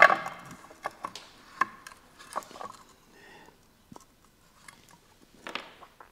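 Light metal clicks and knocks, some ringing briefly, as the upper blade guard of an old Rockwell circular saw is handled and seated on the saw body. Several come close together in the first couple of seconds, with one more knock near the end.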